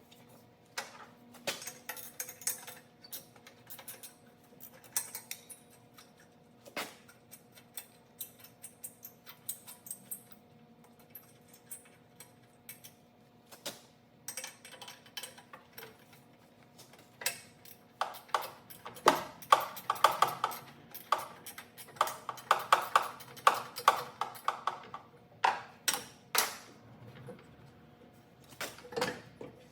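Ratchet wrench clicking in quick runs, with metal clinks of tools and bolts, as bolts are backed out of the turbo's manifold flange; the clicking is densest and loudest about two-thirds of the way through.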